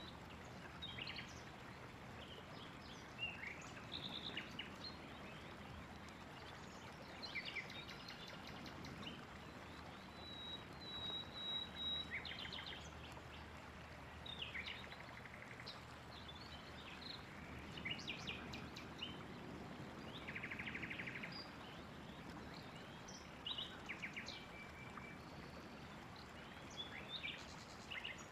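Several songbirds calling and singing over a steady background hiss: scattered short chirps and trills, a held whistle about ten seconds in, and a buzzy trill about two-thirds of the way through.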